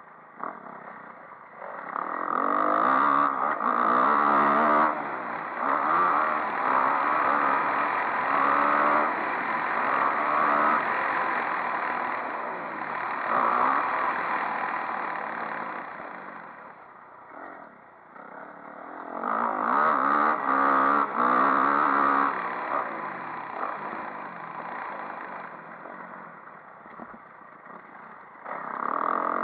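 Motocross bike engine revving hard and easing off over and over as it rides a dirt track, heard close up from a camera on the bike. The engine note climbs and drops with each burst of throttle, loudest a few seconds in and again about two-thirds through, with lighter running in between.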